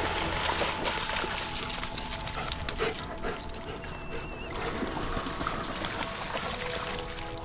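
Dogs splashing through shallow water, a busy patter of splashes and trickling, with a brief high wavering tone about four seconds in.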